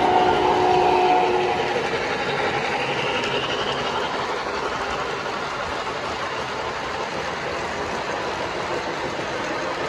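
O scale model steam locomotive's whistle sounding a steady note that stops about a second and a half in. Freight cars then roll past on the model track with a steady rolling clatter.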